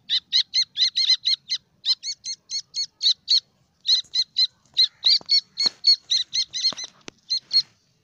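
Caged francolin (teetar) chicks peeping: a rapid run of short, high-pitched chirps, about four to five a second, with brief gaps. A few sharp clicks sound between the chirps past the middle.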